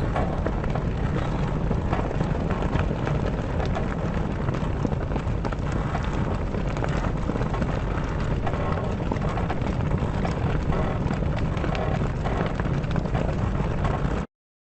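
Sailcloth flapping hard in the wind in a dense, irregular flutter of snaps, with the mast creaking. It cuts off suddenly near the end.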